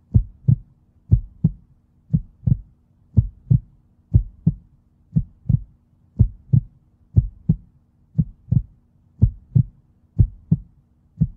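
Heartbeat sound effect: paired lub-dub thumps, about one pair a second, steady throughout, over a faint low hum.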